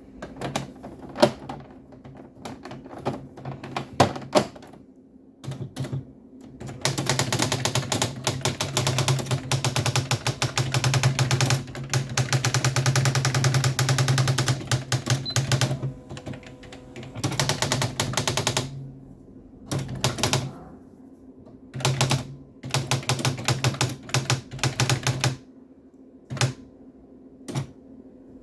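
Sharp PA-6000 typewriter printing: a few separate key strikes, then a long run of rapid strikes over a steady low hum for about twelve seconds, followed by several shorter bursts of strikes.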